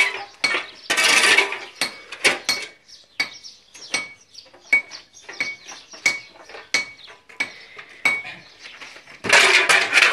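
Metal shovel blade scraping and striking hard, stony ground: a run of irregular sharp clinks, several with a brief metallic ring. A louder burst of noise comes near the end.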